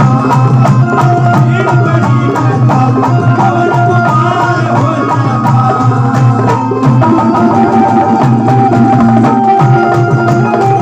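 Bhajan (Hindi devotional song) music without singing: a held melody line over a steady drum beat.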